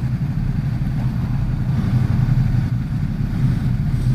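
Ducati XDiavel's 1262 cc V-twin idling steadily at a standstill, a low even rumble.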